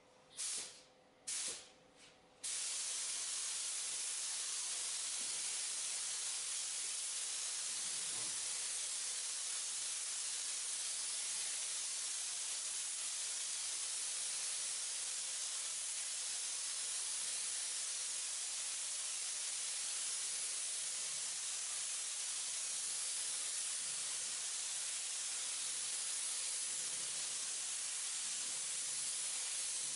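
Compressed-air paint spray gun laying a base coat on a car bonnet. Two short hisses as the trigger is pulled briefly, then a long steady hiss of atomising air and paint.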